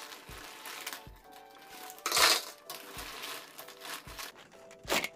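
Cockle shells clattering against a metal mesh strainer and a wooden spoon as they are stirred and lifted in a pot of hot water, loudest about two seconds in and again near the end. Background music with a steady beat plays throughout.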